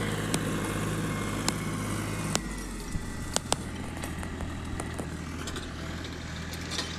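Tractor engine running steadily under load while pulling a harrow, its low drone changing note about two and a half seconds in. Scattered sharp clicks are heard over it.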